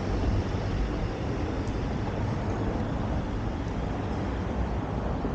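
Steady outdoor street noise of road traffic mixed with wind rumbling on the microphone of a moving bicycle.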